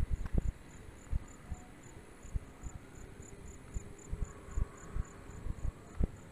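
Insects chirping: one high-pitched chirp repeating evenly about three times a second over a steady high drone. Irregular low thumps of wind or handling noise on the microphone run beneath.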